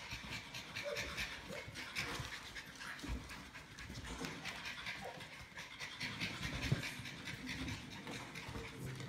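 Norwich terriers panting fast during rough play, with a few soft thumps as they bump and jump.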